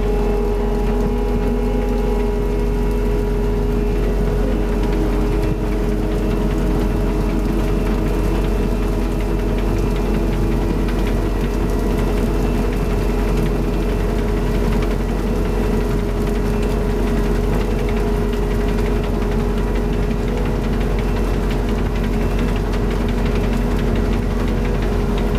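Diesel engine of a Ropa Tiger 6 sugar beet harvester running steadily at a constant pitch, with the hum of its drives and conveyors.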